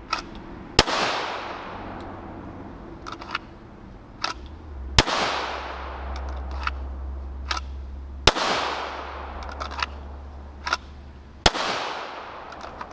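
Handgun drawn from a holster and fired, four loud shots about three seconds apart, each followed by a long echo. Fainter sharp clicks and cracks fall between the shots.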